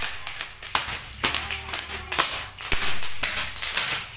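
Bubble wrap popping under bare feet: an irregular run of sharp pops, some in quick clusters, a few a second.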